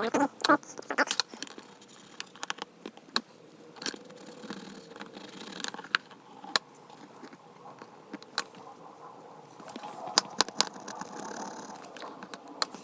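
Scattered light clicks and scrapes of small tools and parts being handled on an opened smartphone, with a few short hissy stretches in between.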